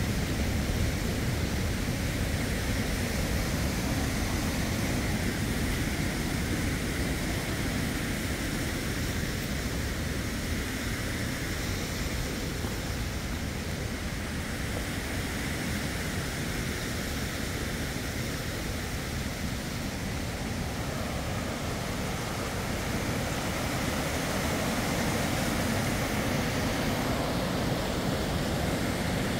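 Fast mountain creek rushing over rocks in whitewater, a steady rushing noise with a deep rumble, a little quieter midway and louder again near the end.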